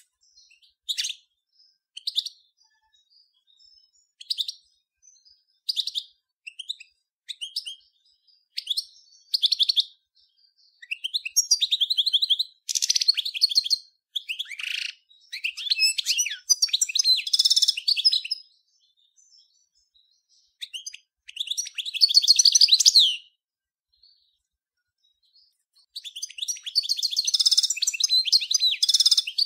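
Major goldfinch (Carduelis carduelis major) singing: at first short single calls about a second apart, then long, rapid twittering phrases of trills and chirps, broken by a few short pauses.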